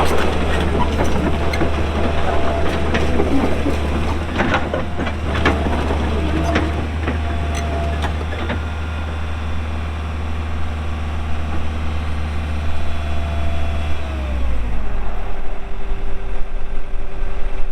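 Case CX160 excavator's diesel engine running at working speed with a steady whine and several metal clanks, then about three-quarters of the way through the engine drops in pitch to idle.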